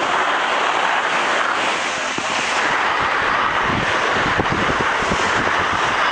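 Wind rushing across the microphone in a steady loud hiss, with low buffeting gusts for a couple of seconds around the middle.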